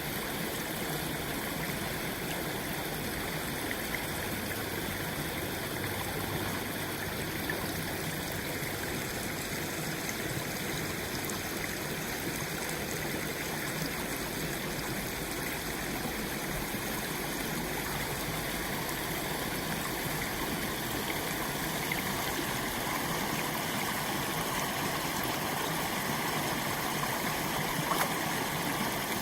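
Water running steadily through a breach in a beaver dam, an even rushing and gurgling with no let-up.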